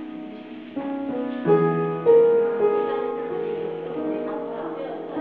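Background music of soft piano-like keyboard notes, with new notes coming in about a second and two seconds in.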